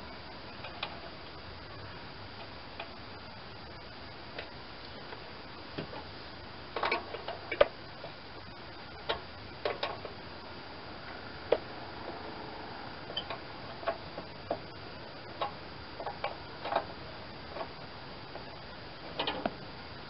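Irregular metallic clicks and clinks of a small wrench working on the snowblower chute's worm-gear crank and its mounting, sometimes in quick clusters, the loudest about seven and a half seconds in.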